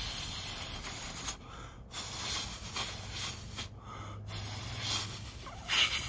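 Breathy exhales sighed over a tongue stuck out between the lips: the airflow across the tongue tip practised for a loud fingerless whistle. Three long breaths with short pauses, and a fourth, louder one starting near the end.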